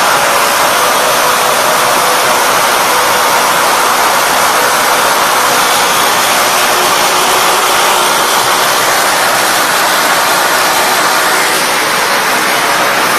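Running factory production-line machinery: a loud, steady hiss-like noise with faint constant hums underneath.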